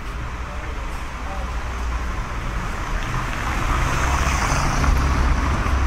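Street traffic: the engine rumble and tyre noise of motor vehicles on the road, swelling as a vehicle passes about four seconds in.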